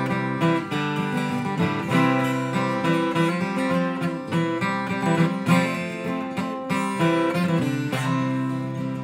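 Acoustic guitar strumming chords in a steady rhythm, played solo without voice.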